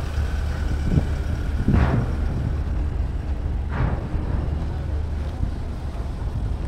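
Steady low engine rumble of vehicles at the ferry ramp, with two brief rushing swells of noise about two and four seconds in.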